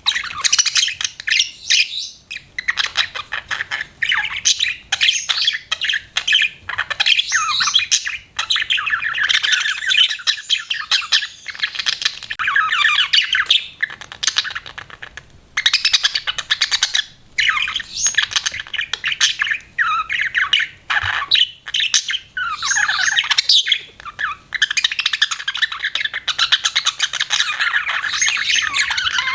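Budgerigar chirping and chattering in quick, warbling runs of chirps and squawks, nearly without pause, broken only by a few short gaps.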